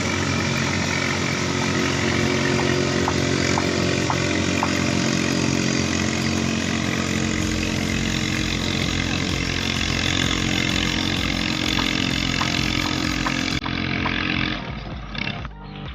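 Ketinting longtail boat engine running hard at a steady, high speed, a loud buzzing motor note. It drops away near the end.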